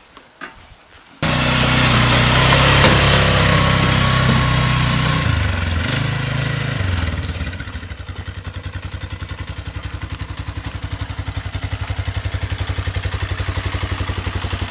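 Polaris Sportsman ATV engine running, its pitch stepping down twice about five and seven seconds in, then settling into an idle with an even, rapid pulse.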